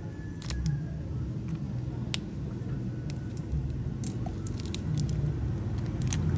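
Zippo lighter being handled and turned over in the hands, giving a few sharp metal clicks about every couple of seconds over a low background rumble.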